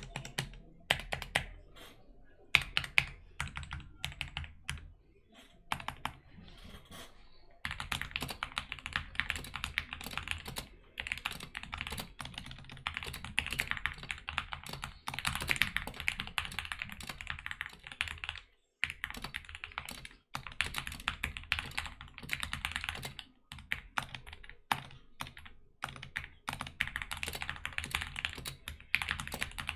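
Typing on a DK61 mechanical keyboard with lubed Gateron optical red linear switches, its case foamed and band-aid modded. Scattered single keystrokes at first, then fast continuous typing from about seven seconds in, with a few short pauses.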